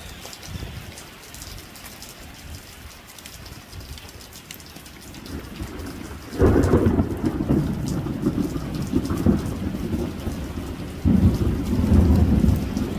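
Recorded thunderstorm: steady rain falling, then a sudden loud thunderclap about six and a half seconds in that rumbles on, and a second surge of thunder about eleven seconds in.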